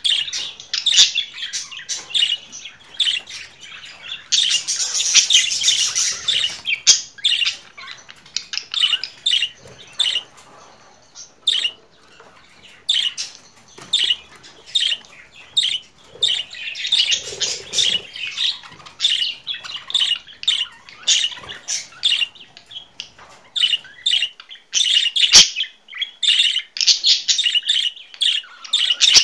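Budgerigars chirping and chattering: a fast run of short, high chirps, with busier warbling stretches about a sixth of the way in and again past the middle, and one sharp click near the end.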